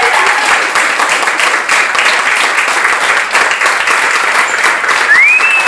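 Audience clapping steadily and densely for the dancers. About five seconds in, one high voice calls out, rising in pitch and holding.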